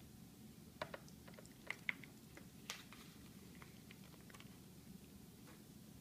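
A few light clicks and taps, most of them in the first three seconds: a baby's fingers patting and picking at puffs on a plastic high-chair tray.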